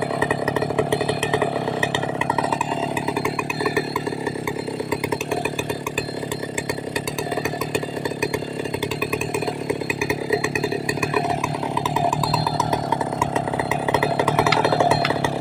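Chainsaw engine running continuously at a steady speed, dipping slightly about a third of the way in and rising a little near the end.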